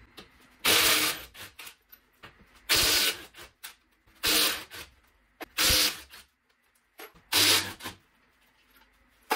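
Cordless power tool on a socket extension loosening and spinning off a car's wheel nuts, in five short rasping bursts about one and a half seconds apart.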